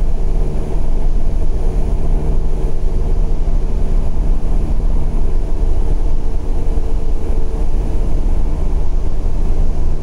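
Single-engine piston light aircraft's engine and propeller drone heard from inside the cockpit: a loud, steady hum with even low tones under airflow noise.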